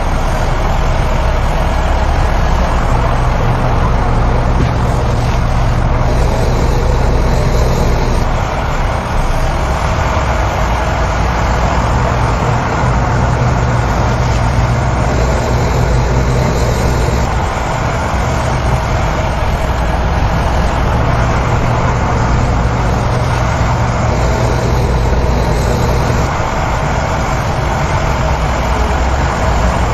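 Heavy diesel earthmoving machinery running, its low engine drone swelling and easing every few seconds.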